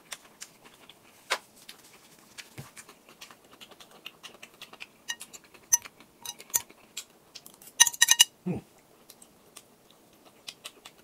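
Chopsticks clicking and clinking against a glass bowl of noodles: scattered light taps with a few ringing clinks, the loudest cluster about eight seconds in.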